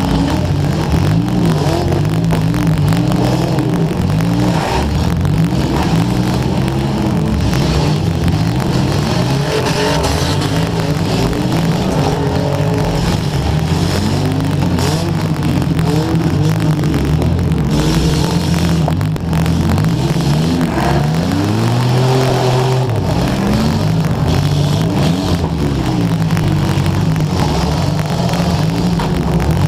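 Demolition derby car engine revving hard, its pitch climbing and falling again and again as the car accelerates and backs off, with scattered sharp cracks and knocks.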